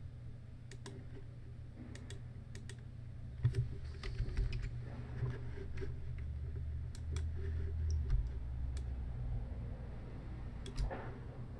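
Scattered clicks of a computer mouse and keyboard as points are selected and dragged, over a steady low hum.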